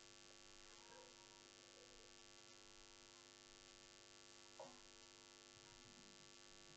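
Near silence: a faint, steady electrical mains hum, with one brief faint tick a little past halfway.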